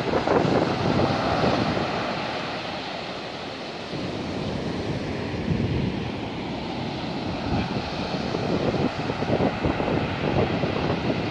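Rough surf breaking and washing up a beach, with storm-driven waves larger than usual for this shore, and wind buffeting the microphone with a low rumble. The wash swells near the start, eases for a moment, then builds again.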